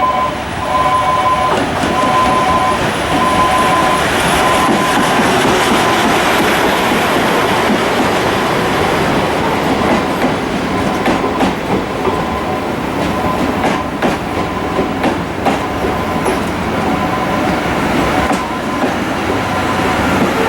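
Train with the C57 steam locomotive running along the rails, wheels clacking over the rail joints. A repeating warning tone sounds about once a second over the first few seconds.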